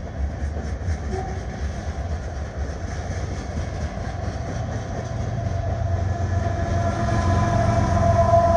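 Freight train passing close by: the cars rumble steadily with a rhythmic clickety-clack of wheels over the rail joints. Near the end a diesel locomotive in the train comes by, and the sound grows louder with a rising hum and whine from its engine.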